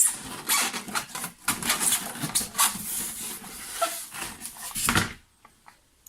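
Rustling, scraping and light knocks of things being handled and moved about. The noise stops about five seconds in.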